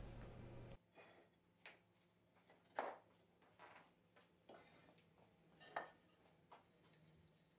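Near silence broken by a few faint, short taps and knocks of a plastic glue bottle and timber rails being handled on a wooden workbench, the clearest about three seconds in and again near six seconds.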